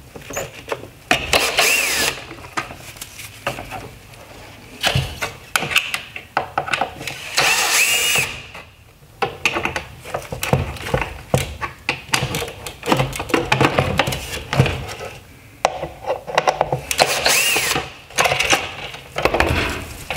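Ryobi cordless drill-driver backing screws out of a plastic headlight housing in three short runs, with clicks and knocks from handling the housing between runs.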